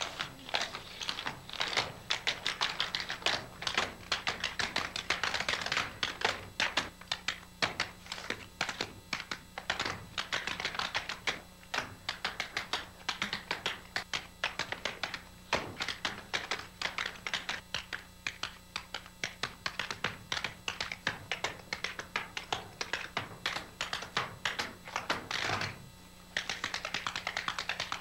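Tap dancing: metal taps on tap shoes striking a wooden stage floor in quick, rhythmic runs of steps. About two seconds before the end there is a brief pause, then a denser, more even run of taps.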